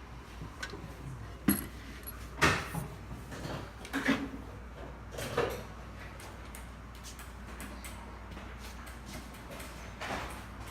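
A few scattered knocks and clacks, as of hard objects being handled or set down, over a steady low background hum.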